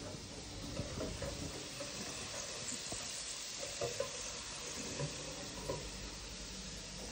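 Food sizzling steadily as it fries in hot oil, with a few light knocks from a utensil.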